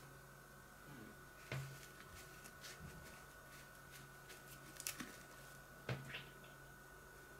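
Faint handling noise: a few light clicks and rustles as small vinyl squeeze bath toys are moved about by hand, the sharpest clicks about a second and a half in and near five and six seconds, over a steady faint hum.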